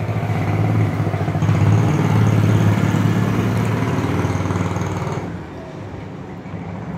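Steady electric motor hum with a faint high whine, louder for about five seconds and then easing off, as a needle held in a hand tool is worked into a new sewing-machine needle plate to widen its undersized needle hole.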